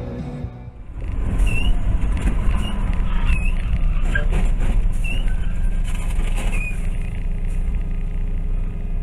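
Steady vehicle engine and road noise from a dashcam recording, beginning about a second in, with several short high chirps over it.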